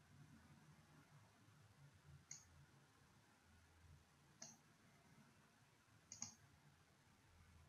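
Computer mouse button clicked three times, sharp short clicks about two seconds apart, the last a quick double click, over a faint low hum.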